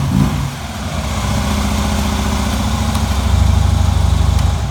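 Harley-Davidson Ultra's V-twin engine idling just after starting. Its level dips about half a second in and swells slightly near the end.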